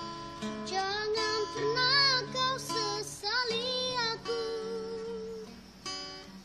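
A young girl singing, accompanied by a strummed acoustic guitar. Her held notes waver with vibrato, and fresh guitar chords ring out near the end.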